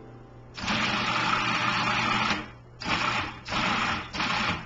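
Electric food processor motor running for about two seconds, then pulsed three more times in short bursts, chopping a raw salmon, breadcrumb and egg mixture.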